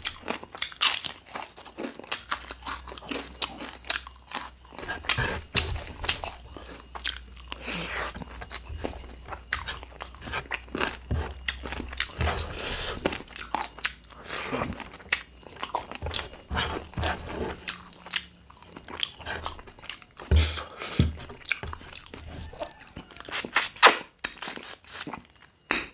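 Close-miked eating of chicken drumsticks with rice: irregular biting and chewing, with many crunches and mouth smacks.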